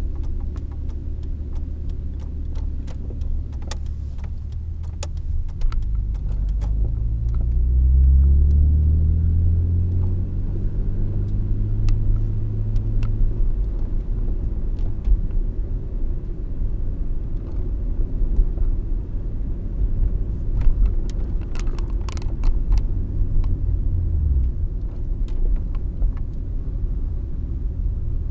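Car engine and road rumble heard from inside the cabin while driving, the engine note rising for several seconds about a quarter of the way in as the car accelerates, with scattered light clicks and rattles.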